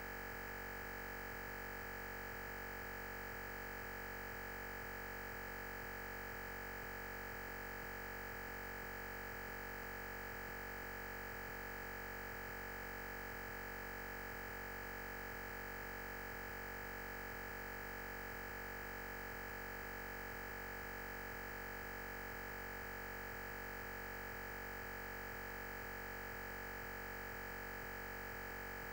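Constant, unchanging electronic hiss with a steady high tone running through it and no voice at all: fixed noise on the recording where the lecture's sound has dropped out.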